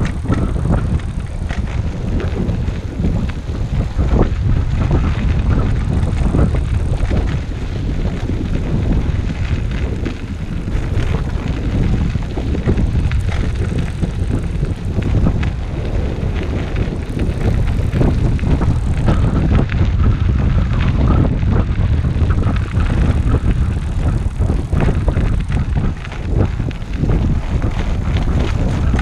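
Wind rumbling on a GoPro's microphone as a recumbent trike rolls along a dirt trail, with tyre noise and scattered small clicks and rattles from the ride over the rough surface.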